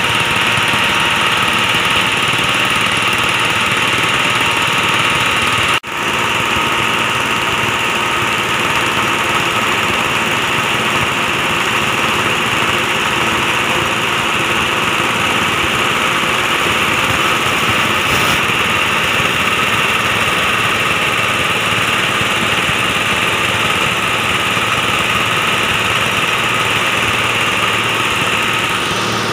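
Hammer-mill husk grinder running steadily at speed, pulverising rice husks into fine bran meal: a loud, unbroken machine noise that briefly cuts out about six seconds in.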